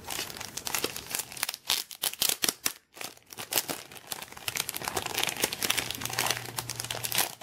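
Clear plastic wrapping crinkling and crackling as hands pull it open and peel it back off a photo book. The crackling is dense, with a couple of brief pauses about two and three seconds in.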